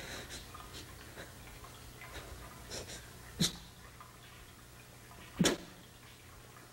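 A crying woman's sharp sobbing gasps: two short, loud catches of breath, about three and a half and five and a half seconds in, the second a quick double. Before them, faint small ticks of dripping water.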